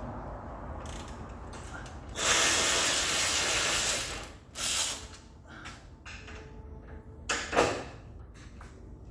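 Ratchet wrench ratcheting on a bolt: a loud run of ratcheting for about two seconds, then two short bursts.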